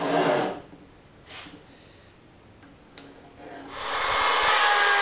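Electric router switched on about three and a half seconds in: the motor spins up within a second and runs at a steady whine while cutting a pocket in melamine-faced board. A short sound comes at the very start and a sharp click about three seconds in.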